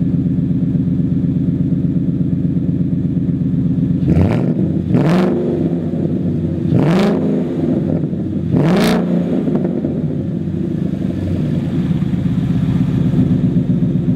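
2015 Mustang GT's 5.0 V8 idling through an aftermarket exhaust, with four quick throttle blips about four to nine seconds in, each rev rising and dropping back to idle.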